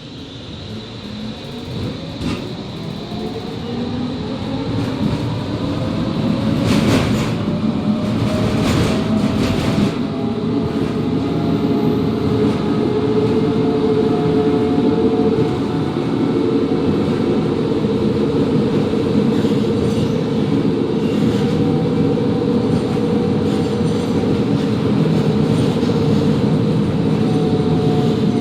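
Končar TMK 2200 low-floor tram pulling away. Its traction motor whine rises in pitch as it gathers speed, then holds steady at cruising speed over the rumble of the wheels on the rails. A few sharp knocks from the wheels and track come about seven to ten seconds in.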